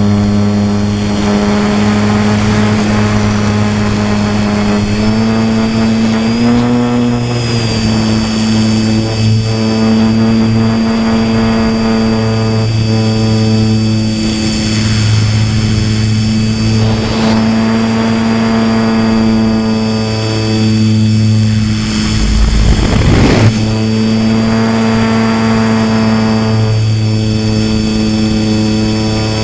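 Motor and propeller of a styrofoam model airplane, heard close up from its onboard camera: a steady buzzing drone with a thin high whine above it. The pitch climbs briefly about six seconds in, and a short rush of noise cuts in about three quarters of the way through.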